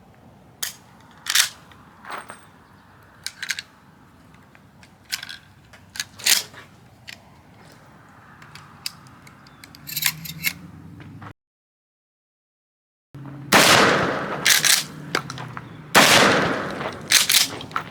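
.22 rifle firing a quick, irregular string of sharp shots, about a dozen in the first ten seconds. After the sound drops out for under two seconds, a few louder shots follow with longer ringing.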